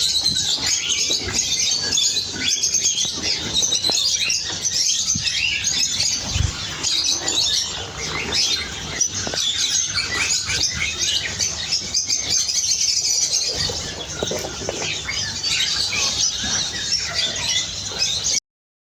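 A flock of caged canaries chirping and twittering over one another in a dense, continuous chorus, which cuts off abruptly near the end.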